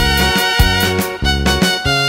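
Chilena dance music led by an electronic organ, with bass notes falling on a steady beat.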